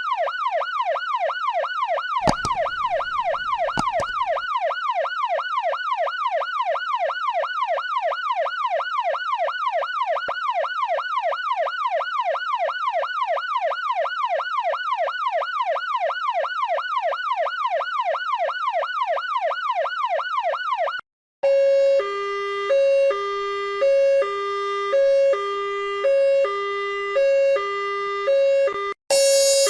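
Emergency vehicle sirens. First an electronic yelp siren sweeps quickly up and down several times a second for about twenty seconds. After a brief break, a two-tone hi-lo siren alternates between two pitches about once a second. Just before the end, a harsher, higher sound cuts in.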